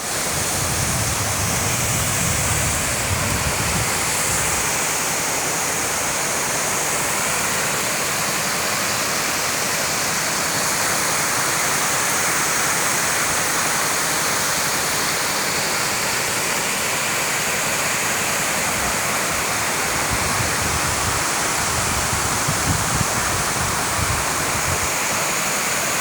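Waterfall pouring over a rock slide: a steady, continuous rush of falling water. Low rumbles come and go during the first few seconds and again near the end.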